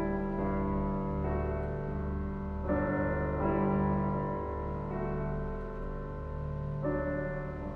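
Slow, gentle piano music, held chords changing every second or two.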